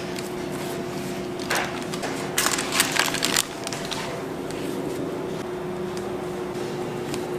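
Steady hum of kitchen machinery, with a brief burst of rustling and clatter from baked cakes and their pans being handled about two to three seconds in.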